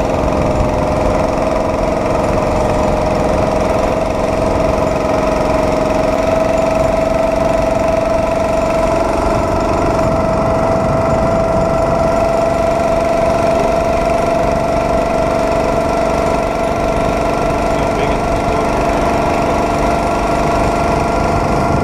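Small engine of a motorized homemade rail cart running steadily under way, its pitch creeping slowly upward, over a low rumble of steel wheels rolling on the rails.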